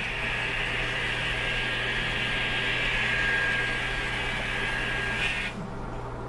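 Small electric motor and gears of an N scale Kato MP36PH diesel locomotive whining steadily as it runs around the track, with wheel-on-rail noise. The whine drops away sharply about five and a half seconds in.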